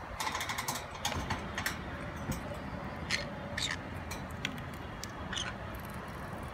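Caged green-cheeked conures feeding: a run of short sharp clicks and brief chirps, thickest in the first two seconds and again a few times later, over a steady low background din.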